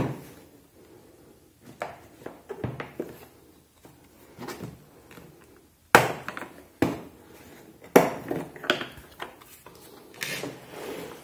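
Hard plastic tool case being unlatched and opened: the red snap latches click open and the plastic lid knocks and rattles as it is handled. Several sharp clicks and knocks, the loudest about six and eight seconds in, with quieter rubbing and shuffling between them.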